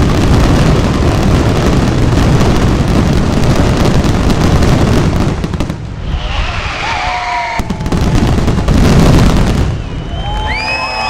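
Fireworks display: a loud, dense barrage of bangs and crackles that eases about six seconds in, with another burst a little later. Whistling tones sound briefly in the lull and again near the end.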